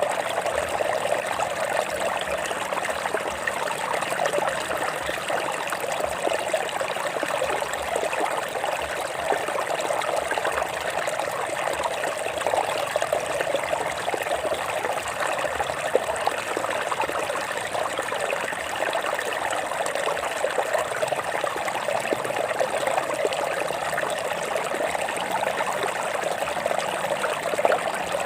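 Stream water flowing and trickling over rocks: a steady, unbroken rush.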